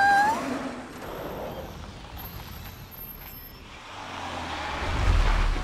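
Motor vehicle running as it drives past and pulls in, an even road noise with a low rumble that swells near the end.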